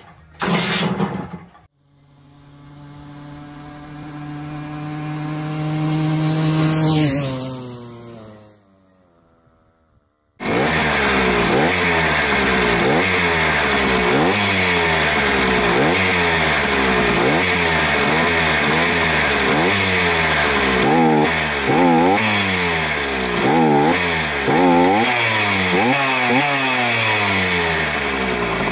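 Sachs 50S moped's two-stroke engine, bored out to 75 cc, revved over and over on the throttle, roughly once a second, each rise in pitch falling back as the throttle closes. It gives a high whine on letting off the throttle, caused by a lower piston ring with too much fitting clearance. Before the revving, a tone rises in pitch for several seconds and fades, with a short gap before the engine sound sets in.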